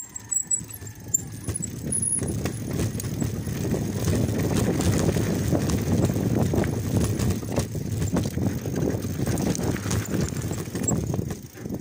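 Mountain bike clattering and rattling at speed down a rough, stony dirt trail, the knobby tyres and bike jolting over loose rocks, with wind rushing over the handlebar-mounted phone's microphone. It dies away suddenly near the end.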